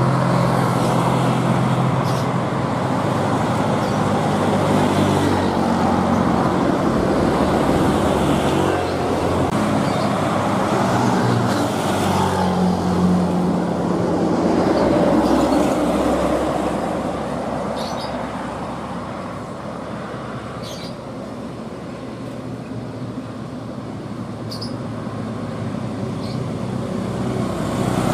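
Road traffic: a heavy diesel truck's engine running with steady low engine tones and tyre noise, and motorcycles passing. The noise fades somewhat past the middle and builds again near the end as the truck approaches.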